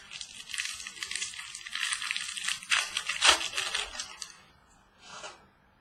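Crinkly rustling and small clicks of trading cards and their packaging being handled and opened, dense for about four seconds with a couple of louder crackles, then a brief softer rustle.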